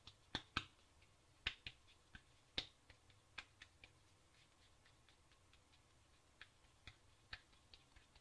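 Hands patting and pressing soft cookie dough between the palms: a series of short, sharp, irregular pats and clicks, closely spaced in the first few seconds and then sparser.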